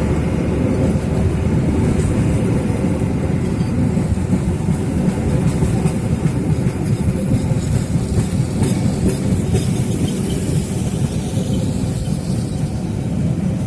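A train passing close by, its wheels rumbling steadily on the rails.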